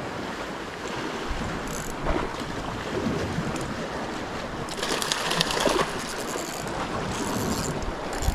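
Sea waves washing on the shore with wind on the microphone, and louder crackling bursts about five seconds in and again near the end.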